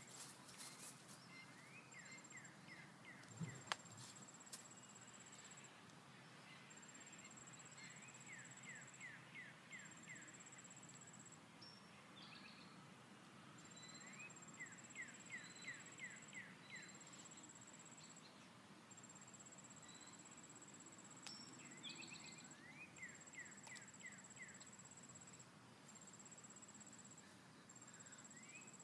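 Quiet rural outdoor ambience: an insect trill in long high-pitched pulses, and a bird repeating a short song of quick descending notes about every six seconds. A single soft thump about three and a half seconds in.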